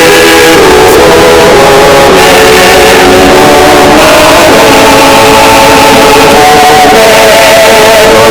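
Party noisemaker horns blaring together, several held tones that shift in pitch a few times, very loud and distorted.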